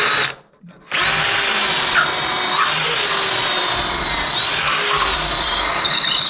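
Electric drill running at speed with a steady high whine, stopping briefly just after the start and starting again under a second in.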